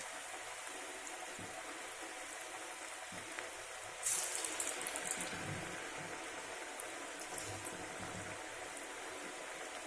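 Cabbage vadas deep-frying in hot oil, a steady sizzle. About four seconds in the sizzling flares up loudly with sharp crackles, as a fresh patty of batter goes into the oil, then settles back.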